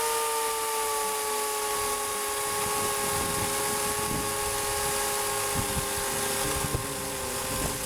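Homelite electric chainsaw running at speed: a steady electric-motor whine made of several tones, sagging slightly in pitch, with a faint irregular low rumble underneath from about two seconds in.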